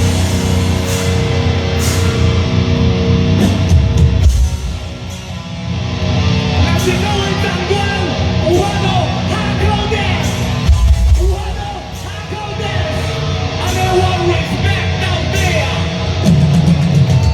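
Live heavy metal band music with a singer's voice over distorted guitars and heavy bass, dipping briefly in loudness twice.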